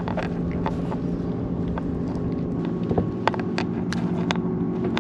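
A boat motor running steadily at idle, with scattered sharp clicks and knocks over it.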